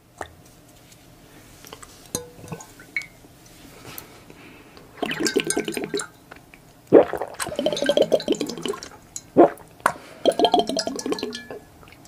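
Close-miked liquid gurgling and sloshing in a corked glass bottle filled with water beads, coming in several bursts of about a second each from about five seconds in, after a few light clicks and taps on the glass.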